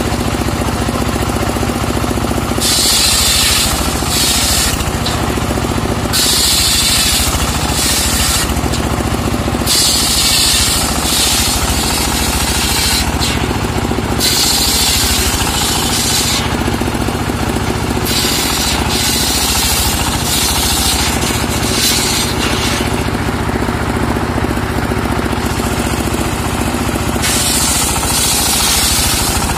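A homemade table-mounted circular sawmill ripping a trembesi (rain tree) log. About seven cuts, each a few seconds of loud high-pitched blade noise through the wood, are separated by short gaps. Under it the saw's engine runs steadily.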